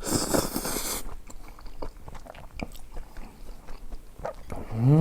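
Close-miked eating: a loud noisy bite or slurp at the start, then chewing with many small wet clicks. Near the end comes a short hummed "mm" that rises and falls in pitch.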